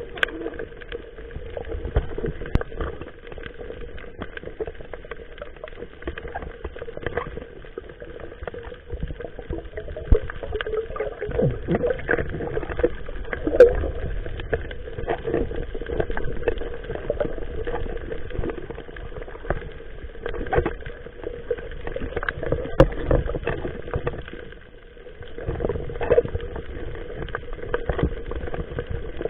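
Water splashing and sloshing around a small wooden fishing boat, with many irregular knocks and a faint steady hum.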